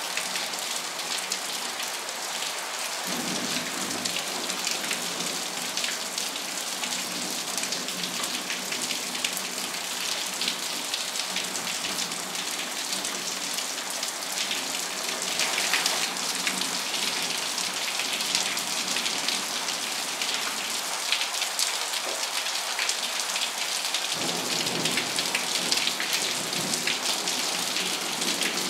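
Steady rain falling on foliage. Twice a low rumble of thunder sets in under it: a few seconds in, and again near the end.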